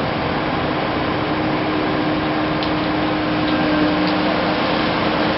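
Diesel engines of a Caterpillar 980K wheel loader and a Caterpillar 740B articulated dump truck running steadily, with a constant droning hum.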